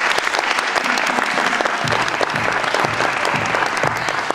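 Audience applauding, a dense steady clatter of clapping. From about two seconds in a low thud repeats roughly twice a second beneath it.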